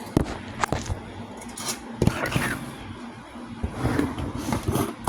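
Kitchen handling sounds: a few sharp knocks of dishes or utensils and stretches of scraping as food and containers are moved about.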